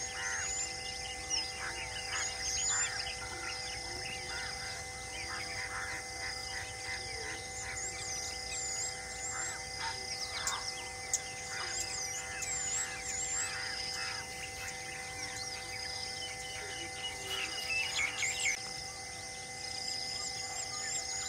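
Many wild birds chirping and calling, with quick rising-and-falling whistles and a louder burst of calls near the end, over a steady drone of held tones.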